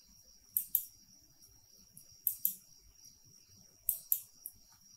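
Computer mouse button clicking: three quick pairs of clicks about a second and a half apart, with a single softer click near the end.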